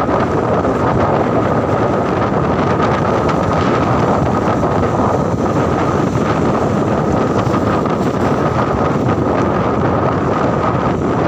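Wind buffeting the microphone: a loud, steady rushing that masks other sounds, with a thin steady tone held underneath.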